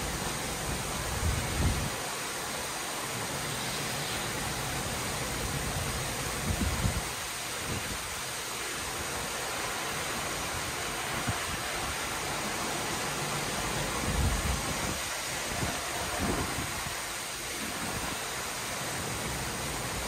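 Heavy rain pouring down, a steady, even hiss, with a few brief low rumbles scattered through it.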